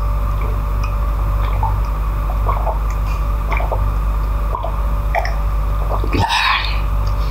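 A person gulping water from a glass close to the microphone: small wet swallowing clicks and drips over a steady low hum, with a short breathy burst near the end.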